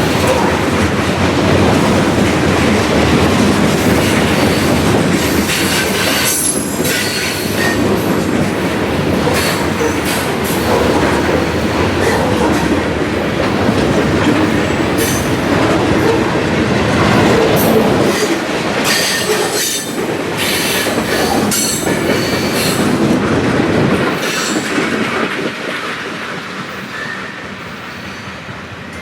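A train rolling past at close range: steady wheel-and-rail noise with clicks over the rail joints and bursts of high wheel squeal, easing off over the last few seconds as it moves away.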